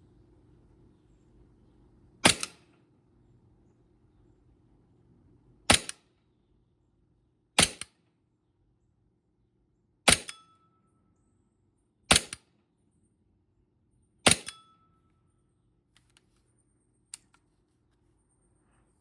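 Gas blowback airsoft pistol, an Umarex/Elite Force Glock 18C, fired six single shots with uneven pauses of two to three seconds between them, each a sharp crack. A few faint clicks follow near the end.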